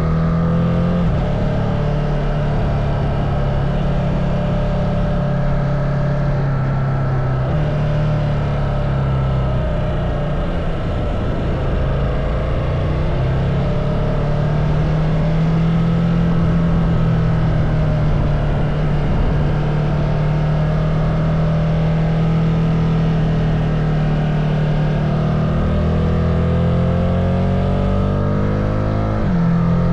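Ducati Multistrada motorcycle engine and exhaust running under way, the note holding steady for long stretches and shifting in pitch a few times. Near the end it climbs, then drops suddenly at a gear change.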